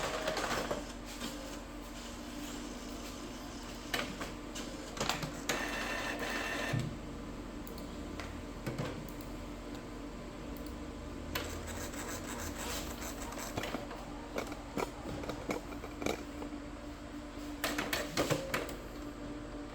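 Canon MX366 inkjet printer's mechanism running on its own: short motor whirs with scattered clicks over a steady low hum, as the printer works through its cycle after power-on with new ink cartridges fitted.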